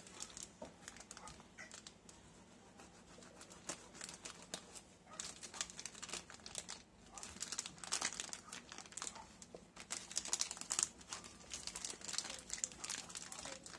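Thin clear plastic shipping bag crinkling and rustling as hands work its tied top open, in irregular crackly bursts that get busier in the second half.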